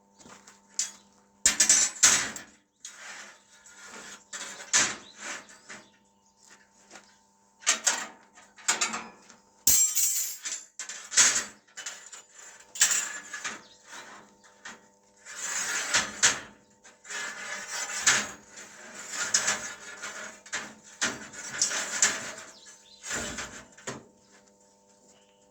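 Irregular clanks, scrapes and clicks of metal parts being handled and worked, over a faint steady hum.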